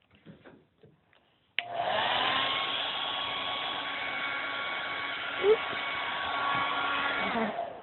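Hair dryer switched on about a second and a half in, its whine rising briefly as it spins up, then running steadily for about six seconds before it is switched off near the end. A brief rising squeak cuts in about two-thirds of the way through.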